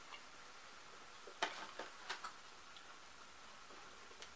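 A few faint short clicks over quiet room tone: a small cluster between about one and a half and two and a half seconds in, and one more near the end.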